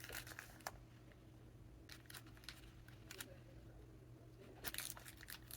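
Faint crinkling and rustling of handled packaging, in a few short bouts.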